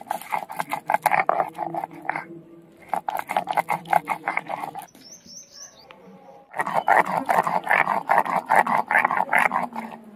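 Stone roller (nora) rocked back and forth on a sil grinding slab, crushing raw shrimp into a wet paste. It makes fast rhythmic grating strokes, about five a second, that stop for a second or two midway and then start again louder.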